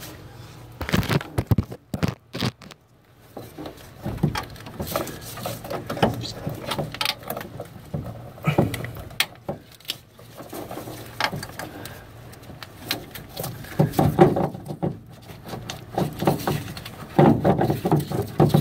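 Irregular knocks, clicks and rustling of someone moving about in a truck cab and handling metal parts on the cab floor, with louder clusters of knocks near the end.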